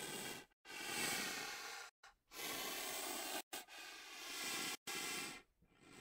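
Rhinoceros breathing out in a run of hissing puffs, about five, each a second or so long with a faint tone running through it and each cut off abruptly.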